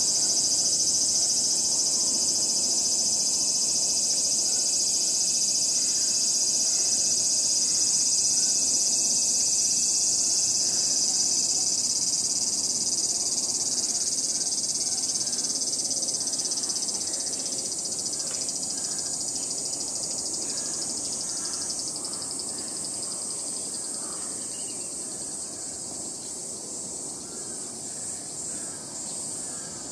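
Chorus of insects: a steady, shrill hiss high in pitch that slowly fades over the second half.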